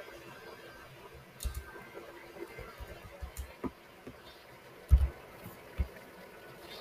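Computer keyboard being typed on: scattered keystrokes and clicks, with a louder low thump about five seconds in.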